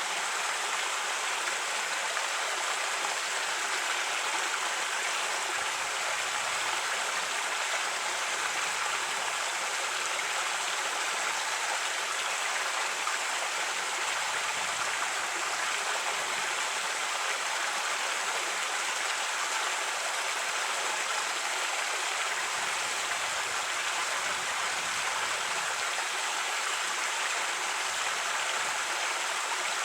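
Creek water running steadily over rocks: an even, unbroken rushing and babbling.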